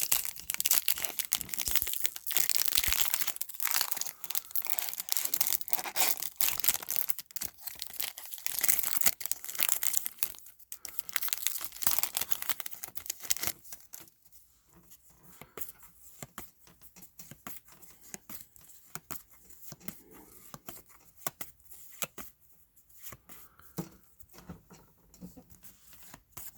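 Foil trading-card pack wrappers being torn open and crinkled, a dense crackling for about the first half, then quieter handling with scattered small ticks from about halfway.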